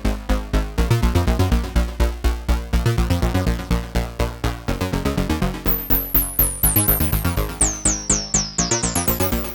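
Behringer JT Mini analog synthesizer playing a bass patch: a fast, even run of short, punchy bass notes. From about halfway in, a high falling chirp sounds on each note.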